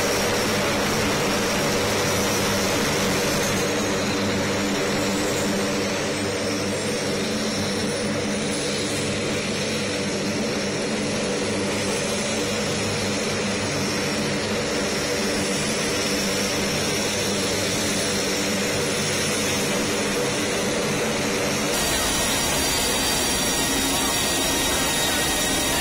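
Four-engine turboprop of a C-130J Hercules running on the ground: a steady, loud engine drone with a faint rising whine in the first several seconds. Near the end the sound changes abruptly to the engine noise as heard at the open rear cargo ramp, with steady high whines over it.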